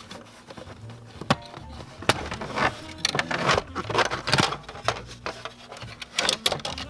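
Background music, with sharp clicks and knocks of parts being handled, busiest from about three to five seconds in.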